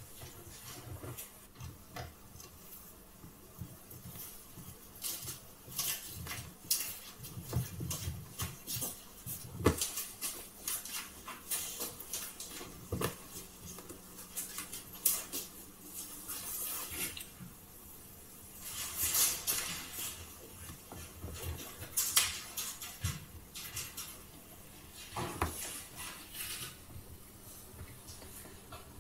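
Handling noises: scattered small clicks, knocks and light clinks, as of a plate being picked up and carried, with a few short hissy rustles in the second half.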